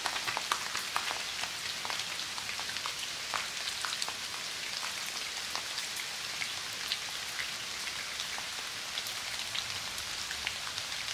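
Steady rain falling, an even hiss of drops with many scattered close drops ticking through it.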